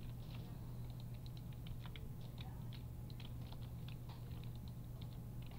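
Computer keyboard keys clicking in short, irregular bursts while shortcuts are entered, over a steady low electrical hum.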